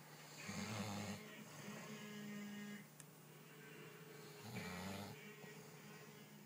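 Snoring in sleep: two long snores about four seconds apart, each lasting about a second, over a steady low hum.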